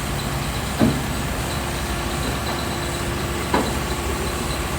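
Heavy diesel machinery running steadily, with two short clanks, one about a second in and another past halfway.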